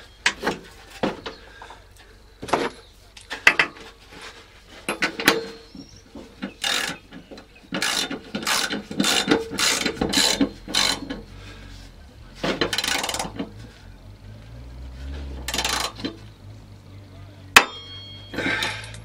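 Socket ratchet clicking in repeated short runs as the nut on a drive pulley of a Yardman ride-on mower's cutting deck is tightened, with a sharp metallic knock near the end.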